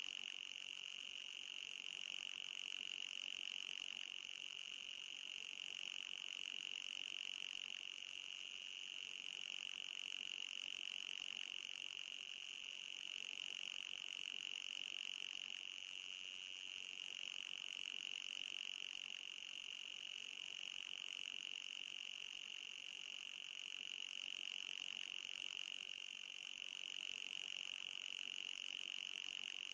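Anti-mosquito repeller sound: a steady, high-pitched electronic tone near 3 kHz with a fainter, higher band above it, swelling gently in level every few seconds.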